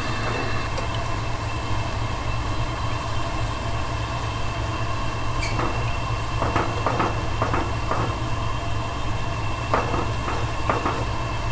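Pan of ramen and broth boiling over a steady low kitchen rumble. From about halfway, metal tongs knock and scrape against the pan several times as the noodle blocks are pulled apart.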